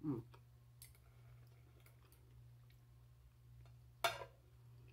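Knife and fork clicking and scraping faintly on a glass plate while a barbecued pork chop is cut, over a steady low hum. A louder, short scraping noise comes about four seconds in.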